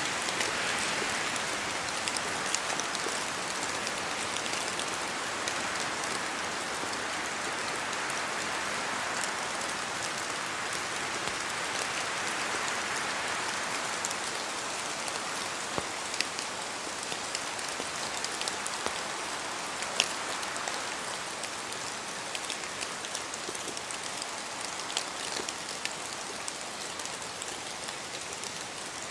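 Steady rain falling in a forest, its hiss swelling and easing a few times as the wind blows, with scattered louder single drops landing close by.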